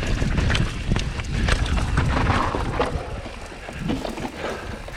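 Transition Scout 2020 mountain bike riding down a dirt trail: wind rumbling on the microphone, with the tyres and frame clattering in many quick knocks over rough ground, easing a little after about three seconds.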